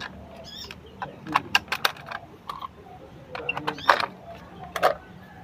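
Hollow plastic toy parts clicking and clacking as loose cow legs are picked up and snapped onto the toy cow's body, a series of sharp separate clicks. A few short bird chirps sound faintly in the background.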